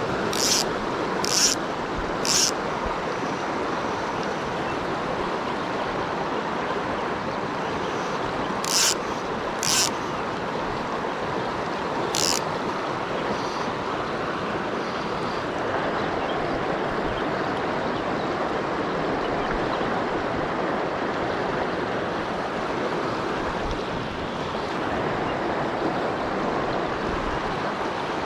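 Steady rush of a flowing creek, with six short, sharp high-pitched sounds scattered over the first dozen seconds.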